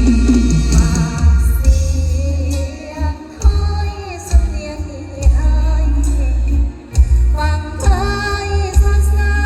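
A woman singing a song with band backing and a heavy bass beat, her voice carrying a wavering melody throughout.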